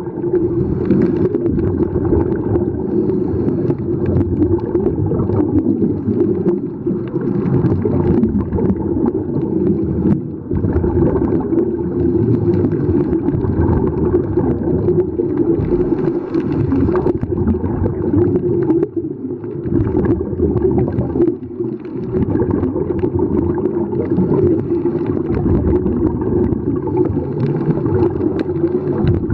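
Muffled underwater noise heard through a camera housing: a steady low rumble with the bubbling of scuba divers' exhaled air from their regulators.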